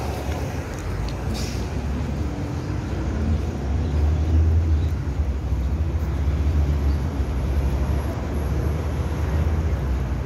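Outdoor street noise: a steady low rumble with no clear single event, swelling a little from about a third of the way in.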